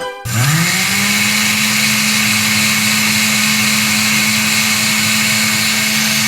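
A small electric motor appliance is switched on. It spins up within about half a second to a steady hum with a strong rushing hiss, runs evenly and then cuts off abruptly.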